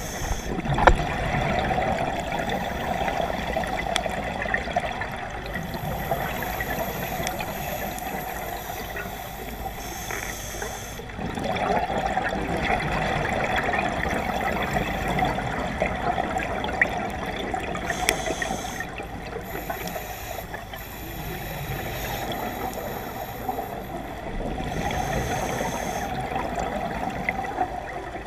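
Scuba diver's breathing through a regulator underwater: long stretches of exhaled bubbles, broken every several seconds by short hissing inhalations.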